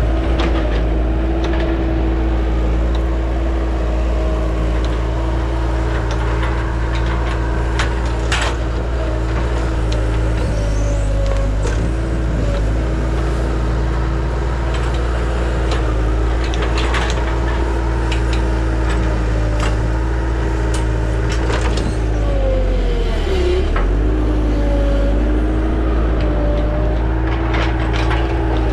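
Bobcat 873 skid steer's diesel engine running steadily with a constant whine, and scattered knocks and cracks. About two-thirds through, the engine's pitch sags for about a second, then recovers.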